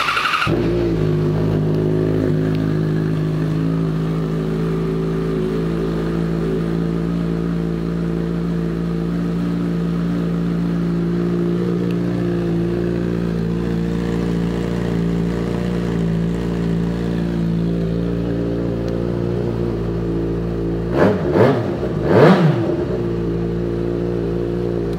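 A 2009 Yamaha FZ-6R's 600 cc inline-four, fitted with a Two Brothers Shorty aftermarket exhaust, idling steadily. Near the end the throttle is blipped twice in quick succession, the revs rising and falling each time.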